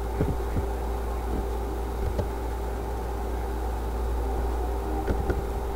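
Steady electrical hum and hiss with a few faint, scattered clicks of laptop keys being typed.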